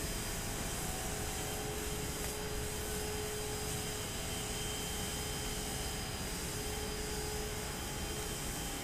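Cooling tower running: a steady, even rush of noise with a few faint steady tones in it.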